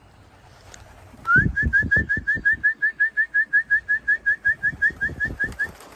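A whistle that rises once, then breaks into a rapid string of short chirping notes, about five or six a second, with a soft thump under each, stopping just before the end.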